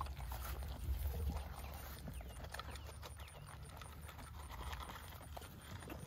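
Nigerian Dwarf goat kids eating pellet feed from a metal pan: a fairly quiet, irregular run of small crunches and clicks. A low rumble is strongest in the first second and a half.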